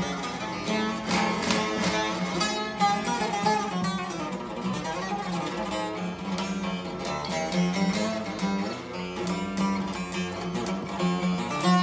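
Divan saz (large long-necked bağlama) with a carved mulberry-wood bowl, played solo: a busy plucked melody over a steady low drone.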